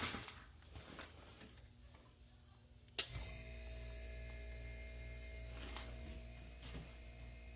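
A sharp electrical click about three seconds in, then a hermetic refrigeration compressor motor starts and hums steadily, started without its start relay by briefly touching the start terminal.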